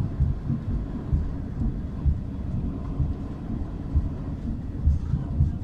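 Railway wagon wheels rolling past on the rails: a steady low rumble with repeated heavy thuds as the wheels cross rail joints.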